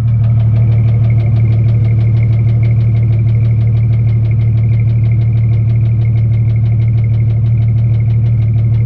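Jeep Cherokee 4.0 L inline-six running steadily at idle, with a fast, even ticking of about six or seven a second over a low, strong hum. The owner is chasing a noise in this engine that new lifters have not cured and that he judges is neither rod knock nor piston slap.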